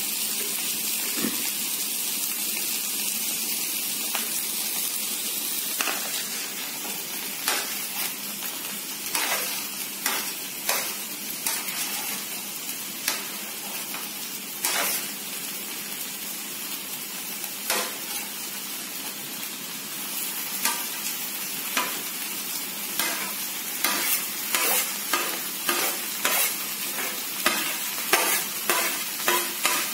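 Mughlai paratha stuffing of mashed potato, crumbled paneer and chopped vegetables frying in a pan on a gas stove, with a steady sizzle. A stirring utensil scrapes and knocks against the pan, and the knocks come about once a second in the second half.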